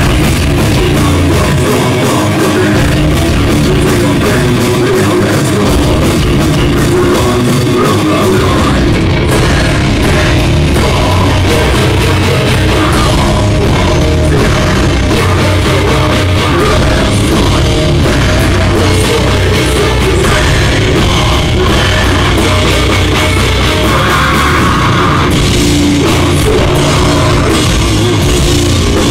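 Live heavy metal band playing loud: distorted electric guitar, bass and drum kit, played without a break.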